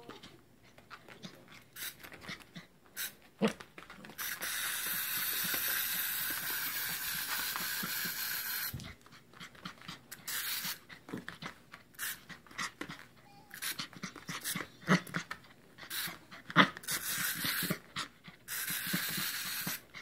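Pembroke Welsh Corgi puppy panting and huffing while it dances around a toy, with scattered short clicks and scuffles. A steady hiss runs for several seconds from about four seconds in, and again briefly near the end.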